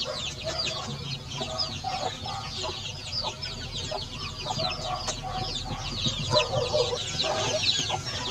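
Chickens clucking against a dense chorus of many short, high, falling chirps.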